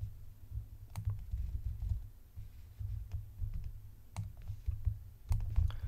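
Computer mouse button clicking a handful of times, sharp and irregularly spaced, as a shape's corner handle is clicked, held and dragged, over a low background hum.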